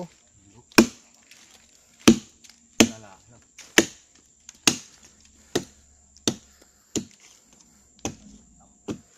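A small axe chopping into a felled palm trunk. About ten separate blows land at a steady pace, a little faster than one a second.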